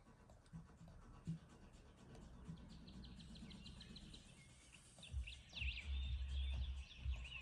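Faint bird chirps and tweets over a low rumble, starting about five seconds in after a near-quiet stretch.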